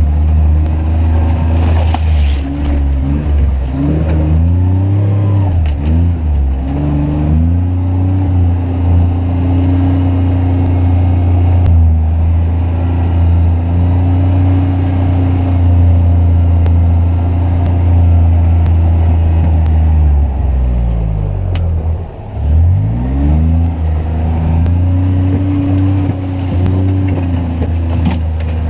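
Kawasaki Mule UTV engine running steadily at low speed, easing off and picking up again several times, with one deep slowdown and pick-up about three quarters of the way through.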